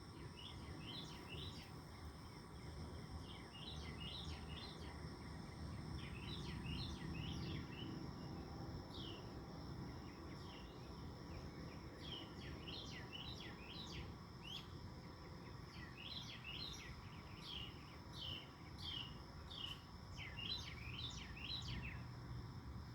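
A bird singing in quick runs of short, high, downward-slurred notes, with pauses between the runs, over a steady low background rumble.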